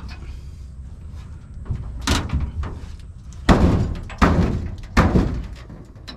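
Metal knocks and clunks from wrenching on a bolted block under a race car: about four sharp knocks that ring briefly, the loudest about three and a half seconds in, with small tool clicks between them.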